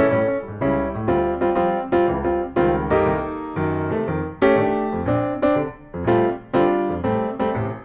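Background piano music: a steady run of struck notes, each ringing and fading before the next.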